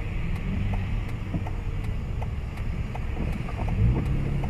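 Road noise heard from inside a car on a wet road: a steady low engine and tyre rumble with a hiss of tyres on water, and faint regular ticking.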